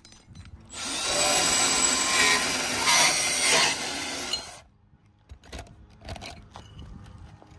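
Milwaukee M18 Fuel cordless compact band saw cutting through an aluminium solar mounting rail for about four seconds, then stopping abruptly, followed by a few light clicks.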